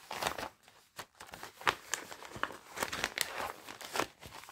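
Plastic packaging and printed paper sheets of a cross-stitch kit crinkling and rustling as they are handled and pulled out, in irregular crackles.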